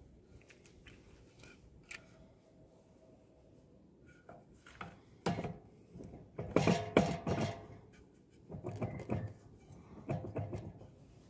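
Aluminium crankcase cover of a walk-behind tractor engine being set onto the crankcase and worked down over the crankshaft: clusters of metallic knocks and clatter, loudest about six to seven seconds in and again near the end.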